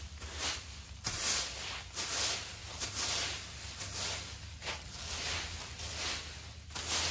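Leaf rake dragged through dry fallen leaves on a lawn, in repeated raking strokes of rustling and scraping, about one to two a second.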